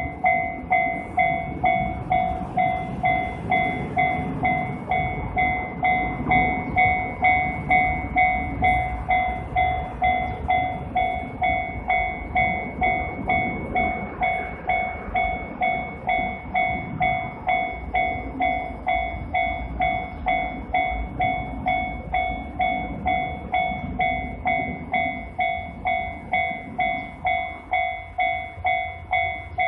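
Japanese railroad crossing alarm ringing in a fast, steady rhythm, over a low, shifting train rumble.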